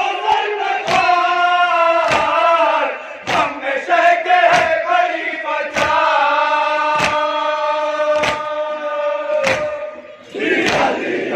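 A group of men chanting a noha in unison in long, held notes, with a sharp strike about every 1.2 seconds, typical of chest-beating (matam) keeping time. Near the end the chanting gives way to a loud crowd shout.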